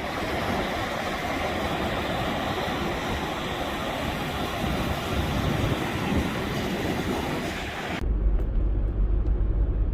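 Steady rushing of wind and surf at the shore. About eight seconds in it cuts abruptly to the low rumble of a car on the road.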